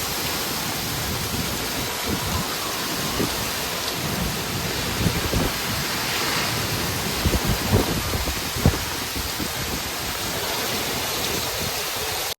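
Heavy rain pouring steadily in a thunderstorm, with scattered brief low thumps, several of them close together about two-thirds of the way through.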